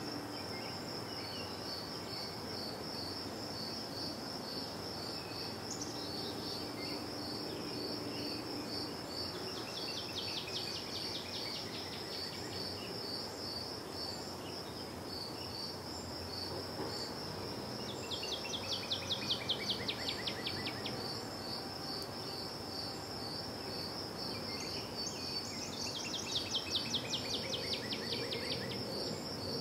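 Crickets chirping steadily in a quick, even rhythm over a low background hum. Three times a bird sings a fast series of notes falling in pitch, each lasting two to three seconds; these are the loudest sounds.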